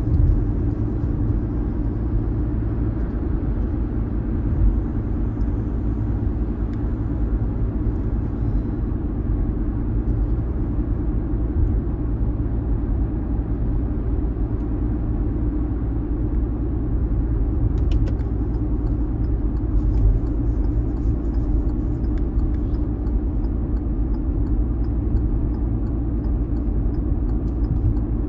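A car driving: a steady low rumble of engine and road noise, with faint regular ticking from about two-thirds of the way in.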